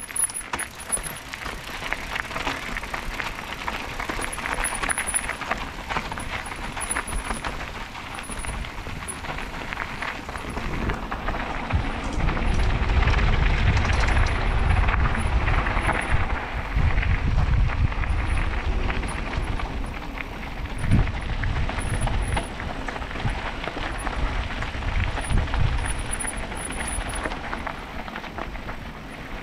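Mountain bike rolling down a rough trail: tyres on gravel with the frame and parts rattling. A deep rumble joins in about twelve seconds in and eases off near the end.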